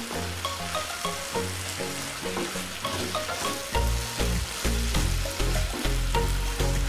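Thick chili paste and fried boiled eggs sizzling in oil in a frying pan, stirred and scraped with a spatula as the balado sauce cooks down, over background music that gains a heavy bass line about halfway through.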